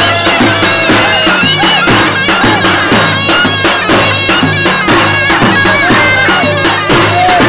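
Loud Turkish folk dance music: a shrill reed pipe, a zurna, plays a wavering, ornamented melody over a steady drone, with regular drum beats from a davul.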